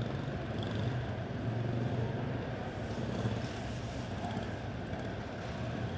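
Junior Animal quarter midget race cars' single-cylinder engines idling together in a steady low hum.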